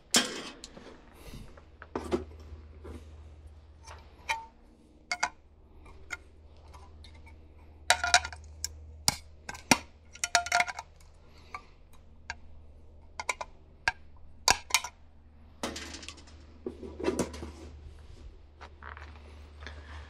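Sharp metallic clinks and taps at irregular intervals as a 3/4-inch knockout is punched and twisted out of a galvanized steel square electrical box with pliers.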